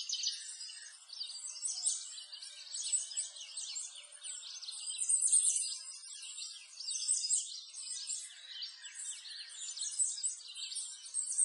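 A dense chorus of many small birds chirping at once: high-pitched and unbroken, with nothing low beneath it.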